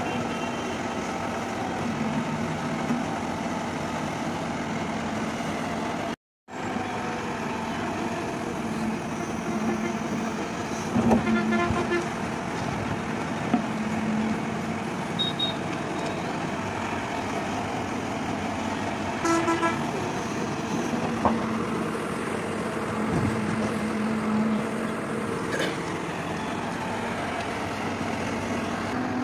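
Hyundai 140 crawler excavator's diesel engine running steadily as the machine digs and loads earth, with a few short horn toots about ten and nineteen seconds in. The sound cuts out completely for a moment about six seconds in.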